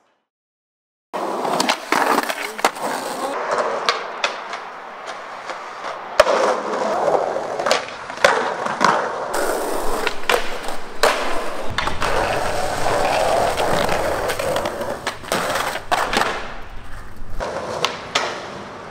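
Skateboard wheels rolling on concrete, with repeated sharp clacks of the board being popped and landing. The first second is silent.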